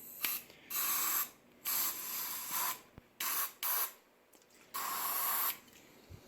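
Aerosol hairspray can sprayed in six separate bursts of hiss, the longest about a second.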